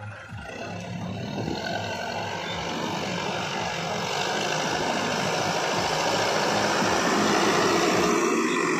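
JCB 3DX backhoe loader's diesel engine running under load as the machine drives over rough field ground, growing steadily louder as it comes close.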